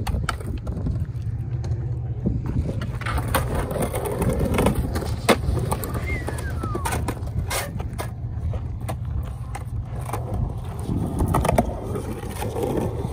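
Skateboard wheels rolling over rough concrete, with scattered sharp clacks and knocks of the board striking the concrete, over a steady low rumble.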